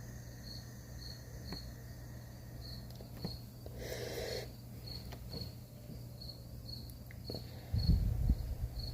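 A cricket chirping steadily, with short high chirps about twice a second, over a low steady hum. A short hiss comes about four seconds in, and low rumbling bumps near the end are the loudest part.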